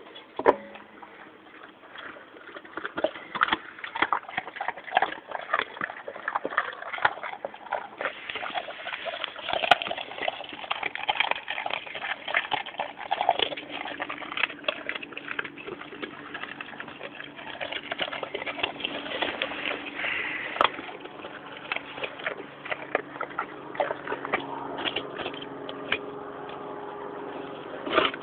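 English Mastiffs chewing chicken carcasses, with many irregular sharp crunches and cracks as the bones break between their teeth.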